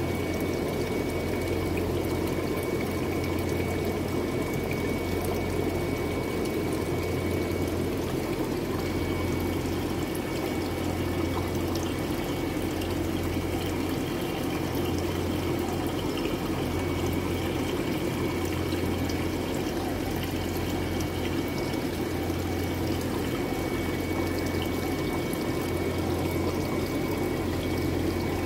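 Steady rush of running water in a fish-rearing tank, over a low steady hum.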